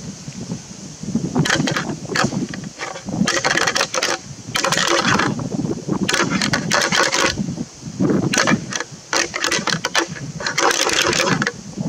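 A series of about eight fallow deer rutting groans, deep guttural croaks repeated every second or so.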